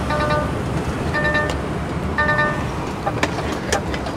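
A warning tone in a DAF XF truck cab beeps three times, about a second apart, over the low, steady run of the diesel engine. A few faint clicks follow.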